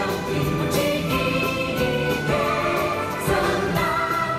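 Show music with a choir singing held notes over a full band.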